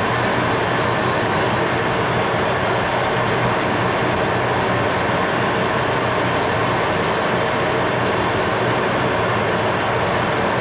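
A machine tool running steadily, giving a constant, even mechanical noise with no strokes or changes.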